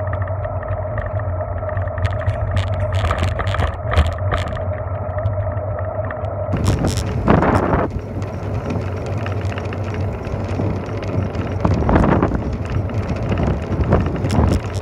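Bicycle rolling along a paved road: steady rumble of tyre and wind noise with a steady hum, scattered short knocks, and louder rushes of noise about seven and twelve seconds in.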